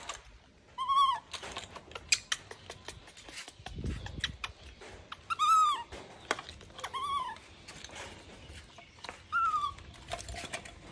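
Baby macaque giving four short high coo calls a few seconds apart, each rising then falling in pitch, with light clicks and clatter of plastic toy dishes in between.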